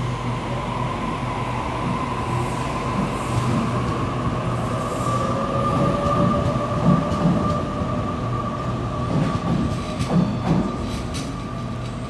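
Sydney Trains Waratah B-set double-deck electric train pulling out past the platform edge, with a steady high tone from the wheels or traction motors and a low hum. Sharp wheel clicks come over the rail joints near the end.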